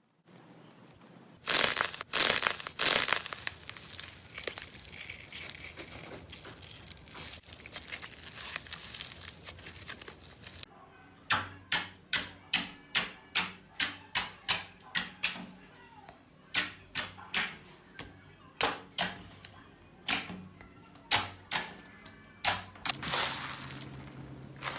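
Hands playing with slime, close up. For about ten seconds there is crinkling and crackling with a few louder squishes near the start, then a run of sharp pops, about two a second, as the slime is pressed and snapped.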